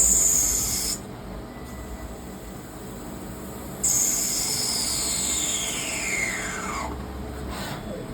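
CNC lathe turning brass: a high-pitched machine whine that stops about a second in and starts again sharply a little before 4 s. It is followed by a whine that falls steadily in pitch, as the spindle slows, and a few clicks near the end.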